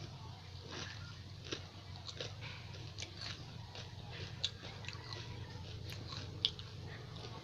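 Close-miked eating of pani puri: crisp hollow puri shells being bitten and chewed, with irregular wet crunching and clicking mouth sounds. The sharpest crunches come about midway and again near the end, over a steady low hum.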